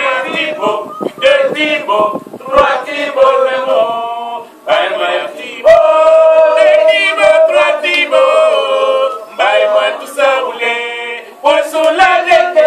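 A group of men and women singing together unaccompanied, in phrases with long held notes and short pauses between them.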